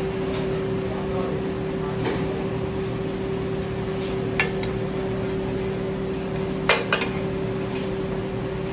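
A serving spoon clinking and scraping against a pan as chilaquiles are spooned out, a few sharp clinks spaced a couple of seconds apart, two close together near the end being the loudest. A steady hum runs underneath.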